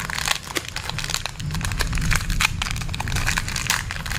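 Plastic wrapper of a packet of Marie biscuits crinkling and crackling in the hands as it is opened, a dense run of sharp crackles.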